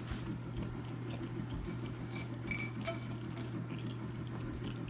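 Quiet eating sounds: a few faint clicks and light clinks of a plate or utensils, over a steady low hum.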